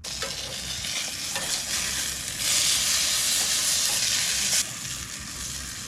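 Steak sizzling in a hot pan, a steady frying hiss that swells louder for about two seconds in the middle, then settles back.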